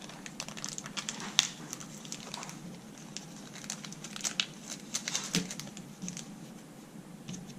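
Small carburetor rebuild-kit parts being handled: scattered light clicks and crinkling.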